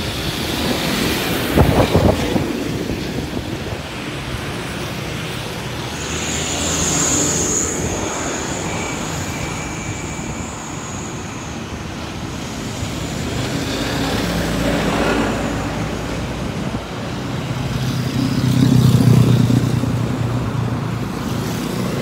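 Road traffic crossing a steel truss bridge: motorcycles, cars and trucks passing, with a loud clatter about two seconds in as a container truck goes by. A thin high whine for several seconds, and a truck's engine rumble swelling near the end; no horn is sounded.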